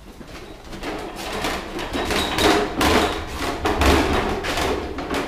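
Small welded steel cart on casters, loaded with a battery charger and a car battery, being rolled over a rough concrete floor: rattling and clattering that grows louder from about a second in.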